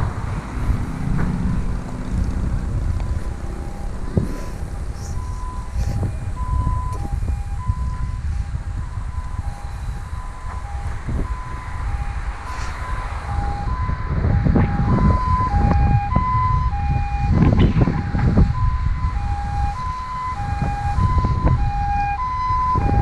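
An electronic warning signal sounding two alternating tones, one higher and one lower, repeating steadily from about five seconds in. Low rumbling wind noise on the microphone runs beneath it.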